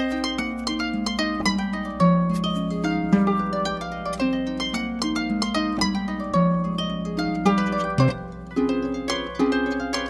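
Harp music playing: a steady stream of plucked notes, a melody over a lower line of notes.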